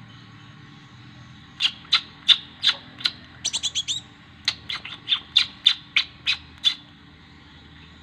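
Young sunbird, the kind Indonesian bird keepers call kolibri ninja, calling with a series of sharp, high chirps about three a second. It starts about one and a half seconds in, with a quick rattling burst of notes in the middle, and stops a little before the end.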